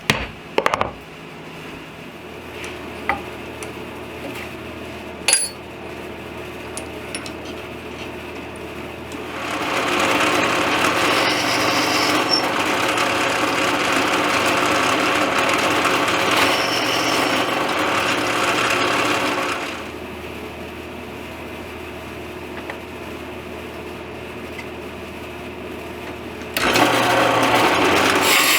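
A woodworking power tool running with a low hum, then working into wood loudly for about ten seconds, and again briefly near the end, with a few sharp clicks early on.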